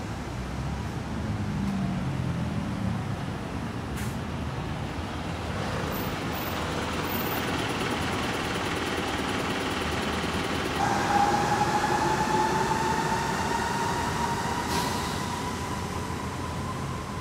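Street traffic: cars and a light truck pass slowly, with engine rumble and tyre noise. In the second half a steady whine joins in, rising slowly in pitch as a vehicle pulls away.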